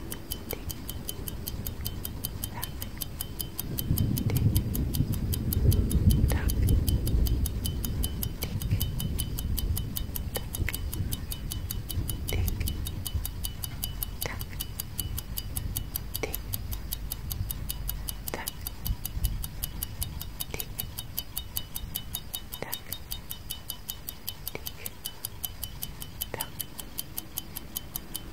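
Clock ticking in quick, even ticks, with a louder click about every two seconds. A low rumbling swell comes in about four seconds in and fades away over the next several seconds.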